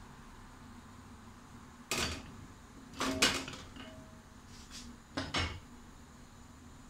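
A metal tin of oats clanking against the gas stove's metal grate as it is handled and set down: three short clatters a second or two apart, the last the sharpest pair of knocks.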